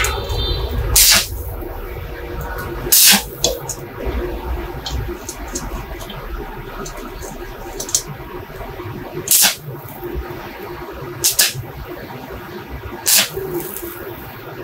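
Torch brazing a small metal ring joint: a low, steady torch rumble with several short, sharp hissing spits at irregular intervals as the filler rod melts in.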